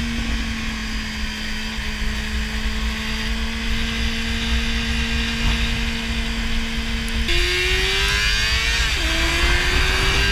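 Yamaha sport bike engine heard from the rider's seat with wind rushing past the helmet: a steady cruising note for about seven seconds, then the revs climb as the throttle opens, drop suddenly on an upshift, and climb again, with the wind growing louder.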